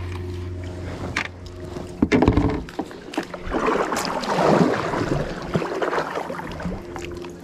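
Water splashing and sloshing around plastic fishing kayaks, loudest between about three and a half and five seconds in, over a steady low hum.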